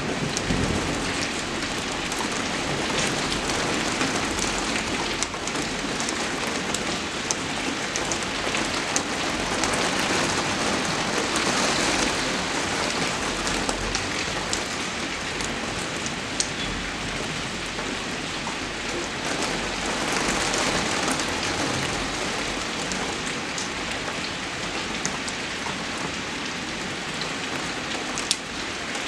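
Steady rain falling on a surface as continuous noise, with scattered sharp drop ticks, swelling a little twice.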